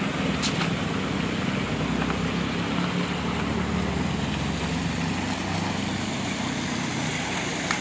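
A vehicle's engine hums steadily while driving, along with road noise.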